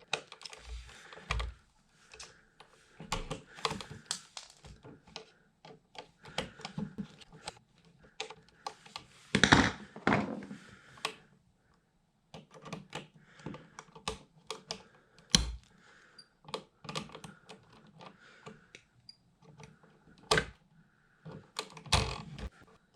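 Hand tools working the wires and screw terminals of a wall outlet: small clicks, taps and scrapes, with a louder scrape about ten seconds in and a few sharp snaps later on.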